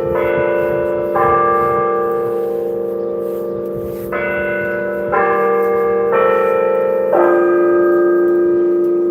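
Church bell in the tower ringing close at hand and loud, struck about once a second, with a pause after the second stroke. Each stroke's tone hangs on and overlaps the next.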